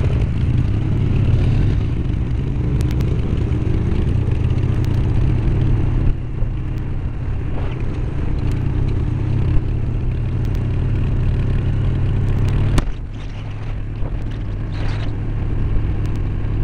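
Honda Shadow Aero 1100 V-twin motorcycle engine running while riding on the street, heard from a helmet-mounted camera, with a steady low drone under rushing noise. The engine sound drops somewhat about two-thirds of the way through.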